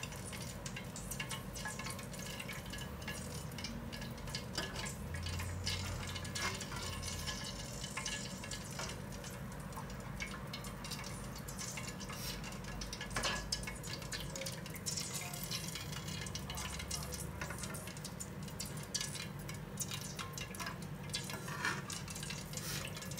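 Faint, steady crackling of peanuts and garlic slices frying in oil, with scattered small pops.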